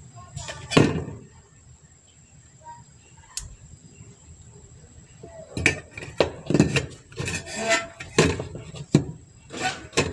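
Light knocks, rubs and clatter of parts being handled on a workbench: a sharp knock about a second in, another a little later, then a busier run of clatter through the second half.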